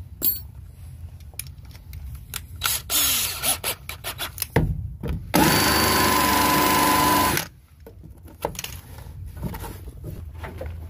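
Cordless drill running for about two seconds, boring a hole through the truck's side step, with a steady whine that cuts off sharply. Scattered clicks and knocks from handling the drill and step come before and after it.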